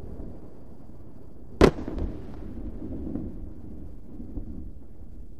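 Explosion of SpaceX Starship Ship 36 on its test stand, heard from a distance: the low rumble of the burning fireball, broken by a sharp bang about a second and a half in and a smaller thump just after.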